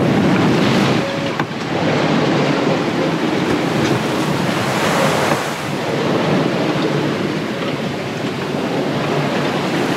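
Wind buffeting the microphone over the rush of seawater past the hull of a sailboat heeled and sailing upwind, the rush swelling and easing with the waves.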